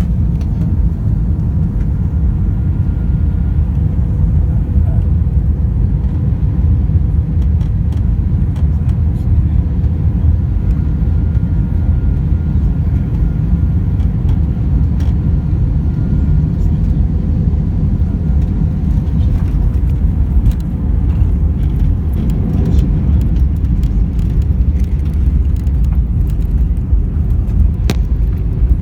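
Airliner coming in to land: a loud, steady low rumble of engines and airflow with a faint steady whine. Scattered clicks and rattles grow more frequent in the second half, with one sharp knock near the end.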